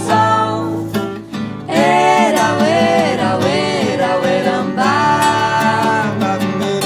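Live music: acoustic guitar accompanying sung voices. After a short dip about a second in, the singing comes in strongly.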